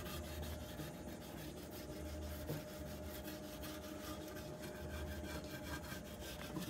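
A peeled garlic clove is rubbed in quick, repeated strokes over the unglazed outside of a clay cazuela, making a faint dry scraping. This is the garlic cure, which lays a thin layer into the raw clay so the pot will not crack over the fire.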